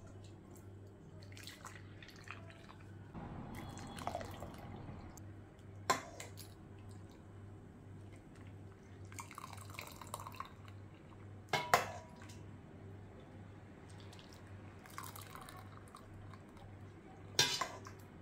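Cornelian-cherry juice ladled from a steel pot through a mesh strainer into a glass measuring jug: liquid pouring and dripping in several short spells. Two sharp clinks of the metal ladle against pot and strainer, about six seconds in and near twelve seconds, are the loudest sounds.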